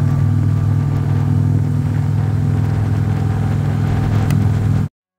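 Kawasaki Vulcan cruiser motorcycle running steadily while riding down the road, a low engine hum mixed with wind noise. It cuts off abruptly near the end.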